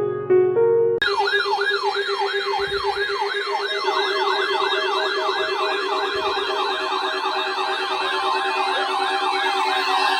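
Layered electronic yelp sirens that start abruptly about a second in, cutting off piano music. Several rapid rising-and-falling wails overlap, each sweeping about three times a second, over a steady pulsing alarm tone.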